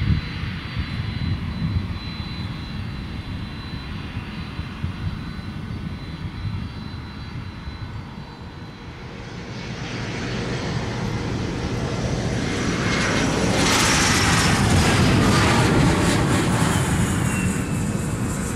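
Low, steady rumble of a Boeing 767-300's jet engines. About halfway through, the engines of a JAL 767-300 lined up on the runway spool up for takeoff: a rising whine over a growing roar that holds loud near the end.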